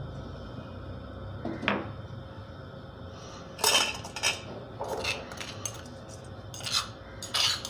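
Steel spoon scraping crushed garlic out of a stone mortar into a steel bowl: a short scrape about two seconds in, then a run of quick metal-on-stone scrapes and clinks through the second half, over a faint steady hum.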